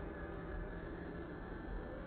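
Steady, even background noise with no bangs or pops.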